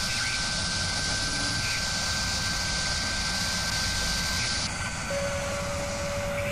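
Steady machine-like whirring drone from an animated logo's sound design, with a thin high whine over rumble and hiss. The hiss cuts off suddenly about two-thirds of the way through, and a lower steady tone takes over.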